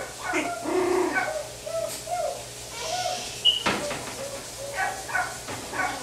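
Six-week-old Pomeranian puppy whimpering and yipping in a string of short cries, with a sharp click about three and a half seconds in.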